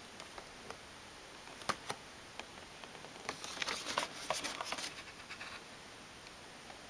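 Light handling noise: scattered clicks, two sharp ones, then a few seconds of dense crackling and clicking, typical of cardboard and plastic packaging or small computer parts being handled.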